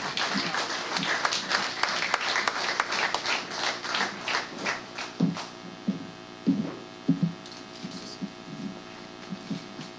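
Audience applauding, the clapping thinning out and stopping about five seconds in, after which a steady low hum and a few faint scattered sounds remain.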